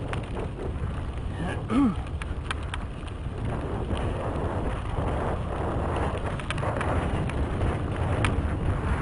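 Wind buffeting the microphone of a helmet camera on a mountain bike descending dirt singletrack, with tyre noise on the dirt and scattered rattling clicks from the bike. About two seconds in, a short pitched sound rises and falls.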